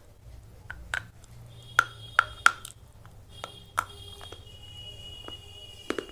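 Slate pencils being bitten and chewed close to the microphone: sharp, brittle crunches, about seven of them, spaced unevenly with short pauses between.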